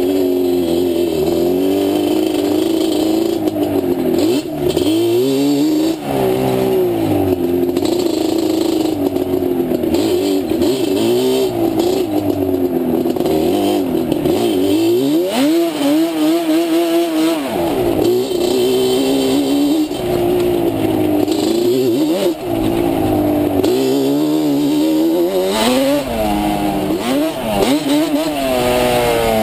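Yamaha Banshee ATV's twin-cylinder two-stroke engine being revved up and down, its pitch rising and falling over and over as the throttle is worked. It climbs in long revs about halfway through and again near the end.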